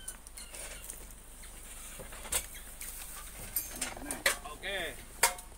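A few sharp knocks as bamboo poles are handled and set down, with a chicken clucking several times near the end.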